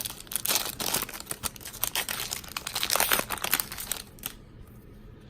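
Plastic wrapper of a baseball card pack crinkling and being torn open, a dense crackle that dies down about four seconds in.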